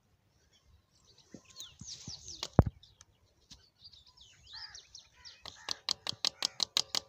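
Small birds chirping in quick falling notes, with a single sharp metallic click about two and a half seconds in and a fast run of ringing metallic clicks, about six a second, near the end.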